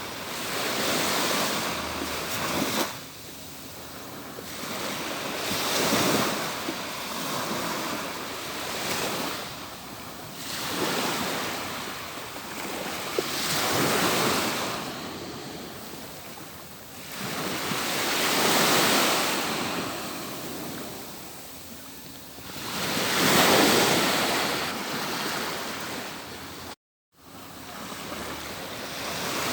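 Atlantic Ocean surf breaking and washing up a beach, each wave swelling and fading in turn, about six surges over the span. A split-second gap in the sound comes near the end.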